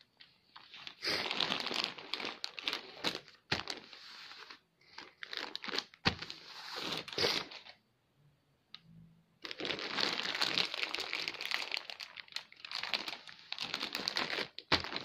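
Plastic film wrapping of a diaper pack crinkling as it is handled and turned over, in irregular bursts with a short pause about halfway through.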